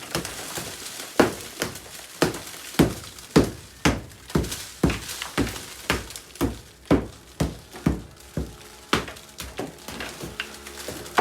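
Footsteps at a steady walking pace, about two a second.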